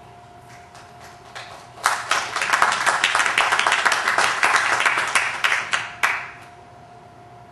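Audience applauding: a few scattered claps, then full clapping from about two seconds in that lasts about four seconds and stops abruptly.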